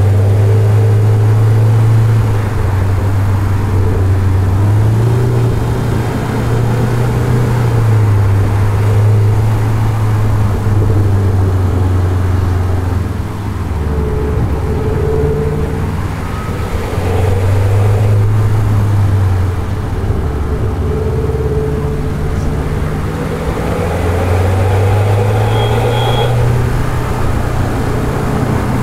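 Subaru Forester SK5's STI sport muffler carrying the uneven, burbling note of its turbocharged flat-four under load. The engine pitch repeatedly climbs and drops back as the car accelerates and slows around a short circuit.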